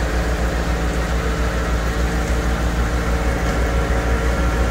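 A large engine idling steadily: a low, even rumble with a constant hum above it.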